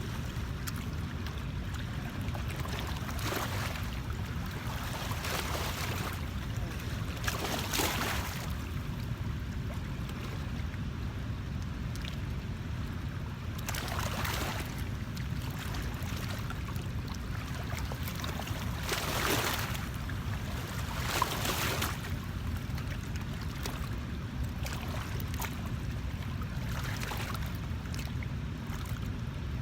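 Outdoor river water sound over a steady low rumble, with several short splashes scattered through.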